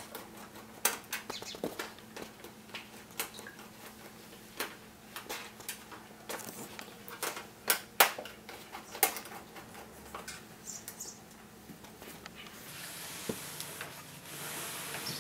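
Irregular small clicks and scrapes of a screwdriver turning screws out of a heater's plastic back cover. Near the end comes a longer rustling hiss as the heater is handled and turned.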